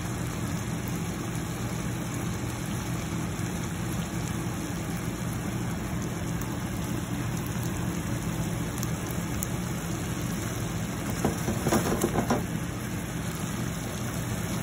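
Shrimp simmering in sauce in a pan: a steady hiss over a low, constant hum. A brief voice comes in about eleven seconds in.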